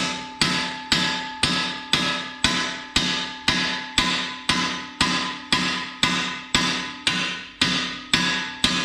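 Hammer blows on a steel bar, driving a pin out through the top of a crusher jaw: steady strikes about two a second, each ringing metallically.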